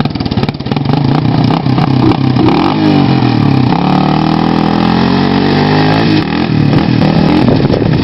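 Small off-road vehicle's engine running, choppy at first, then revving with the pitch rising and falling from about three seconds in as it is ridden.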